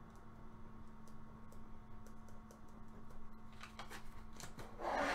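Faint scratching and small ticks of a pen writing on a sticky note, then a short, louder paper rustle near the end.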